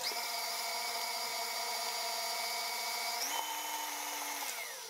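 KitchenAid tilt-head stand mixer's motor whining steadily with the head raised and the paddle spinning clear of the batter. Its pitch steps up about three seconds in, then slides down and fades as the motor winds down near the end.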